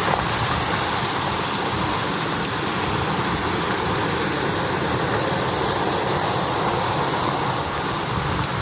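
Bus on the move heard from inside the cabin: a steady rush of engine and road noise with no break.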